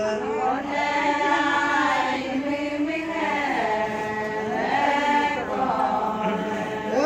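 A group of women singing a Ponung folk chant in unison, in long held notes that glide from one pitch to the next in phrases.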